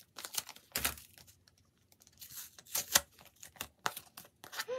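Packaging being unwrapped by hand: irregular crinkling and tearing with scattered sharp clicks, the loudest crackle about three seconds in.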